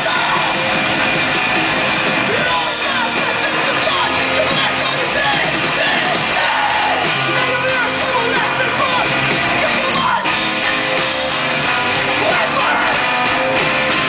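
Live post-hardcore band playing: electric guitars, bass and drums with shouted vocals, loud and continuous, as heard from the audience.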